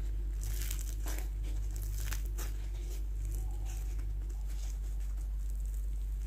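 Crisp crust of a deep-fried yeast-dough meat pie crackling and rustling as fingers squeeze it and begin tearing it open, densest in the first couple of seconds, over a steady low hum.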